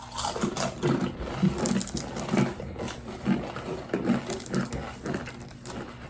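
Paqui One Chip Challenge tortilla chips being bitten and chewed, irregular crunches coming a few times a second.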